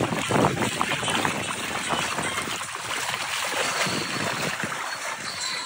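Water sloshing and splashing around chest waders as a person wades through shallow water, in an irregular run of splashes.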